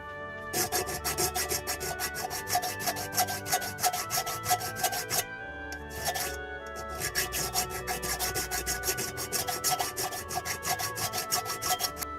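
Rapid back-and-forth strokes of a hand file on a kettle's metal spout, about five strokes a second. Filing a dip just behind the tip like this makes the spout tip turn down so it stops dripping. The strokes come in two runs with a short pause about halfway, over soft background music.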